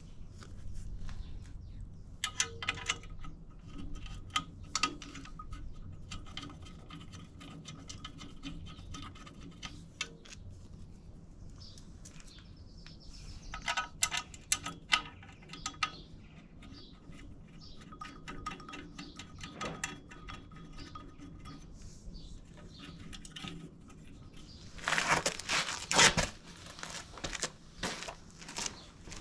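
Scattered clicks and metallic clinks of hand tools and metal parts being handled while bolting up a clutch assembly, with a louder run of rapid clicks about 25 seconds in.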